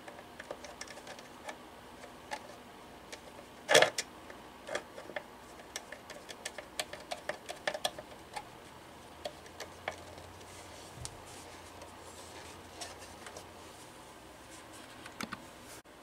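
Screwdriver driving screws into the metal base plate of a Western Electric rotary desk telephone: scattered small clicks and ticks of metal on metal, with one louder knock about four seconds in.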